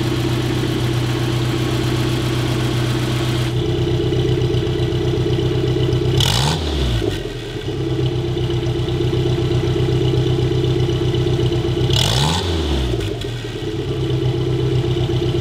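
Rear-mounted Triumph Herald four-cylinder engine of a 1962 Amphicar 770 idling steadily, blipped twice with brief revs about six seconds apart that rise and fall back to idle.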